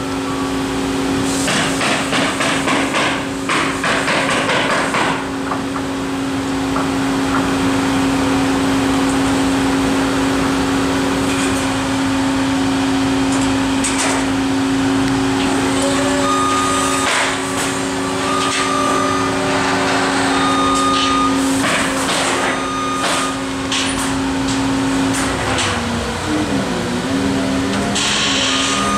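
Construction crane's engine running steadily as it holds a wooden roof truss, its pitch dropping near the end. Rapid hammering on the timber framing in the first few seconds.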